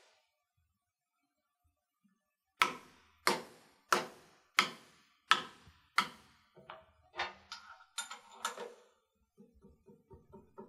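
Mallet striking a metal workpiece in a milling-machine vise to seat it down onto the parallels: six firm, sharp knocks about 0.7 s apart, then several lighter, quicker taps. Faint clicking follows near the end.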